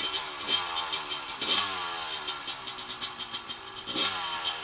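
Dirt bike engine running after a hard restart, revved in several blips, its pitch rising and falling about half a second, one and a half, and four seconds in as the throttle keeps it from stalling.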